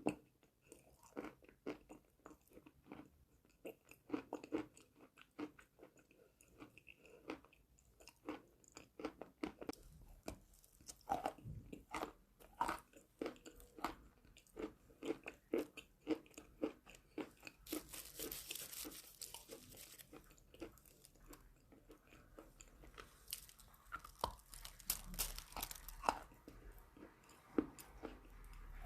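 Close-miked biting and chewing of crunchy chalk: a long run of sharp crunches and crumbling chews, with a brief gritty hiss about two-thirds of the way through.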